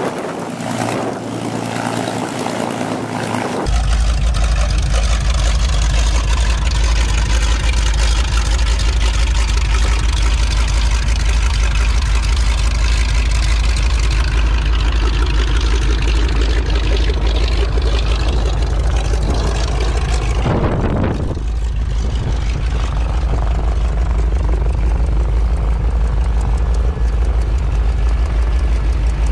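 North American T-6 Texan's nine-cylinder Pratt & Whitney R-1340 radial engine running steadily on the ground with its propeller turning, a deep, rapid pulsing. For the first four seconds or so a P-51 Mustang's V-12 engine is heard running instead, and the sound changes abruptly to the Texan.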